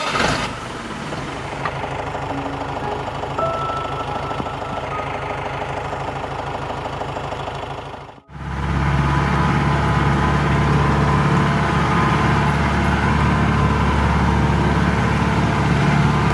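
Mahindra jeep engine running steadily at idle. After a sudden cut about eight seconds in, it runs louder and deeper as the jeep drives a muddy off-road track.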